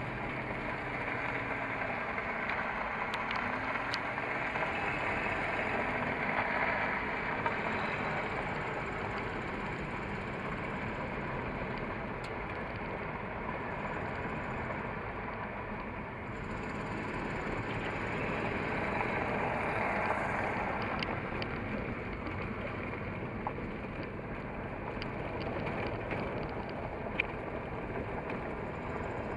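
Toyota off-road truck driving, its engine running under way in a steady wash of engine, tyre and wind noise, with a few light knocks and rattles.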